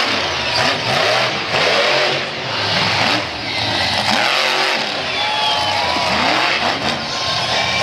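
Monster truck engine revving hard over and over, its pitch surging up and falling back several times a second as the truck is driven through jumps and over crushed cars.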